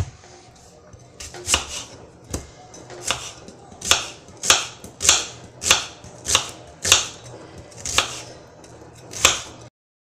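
Kitchen knife cutting through a peeled onion and knocking on a wooden cutting board, about two cuts a second in a steady run that stops shortly before the end.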